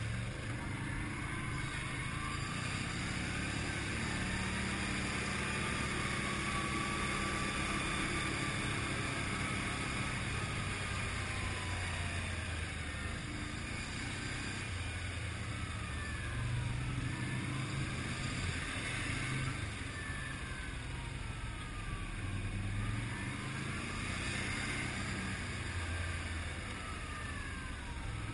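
ATV engine running while riding, its pitch rising and falling several times with the throttle.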